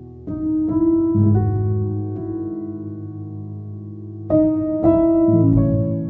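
Piano music: single notes and chords struck one after another and left to ring. A few notes come in quick succession near the start, then louder chords about four and five seconds in.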